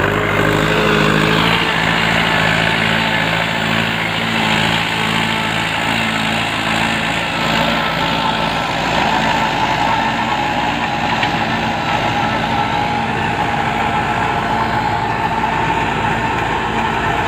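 Mahindra 595 DI tractor's diesel engine running steadily under load as it drives an 8-foot rotavator, its blades churning through the soil.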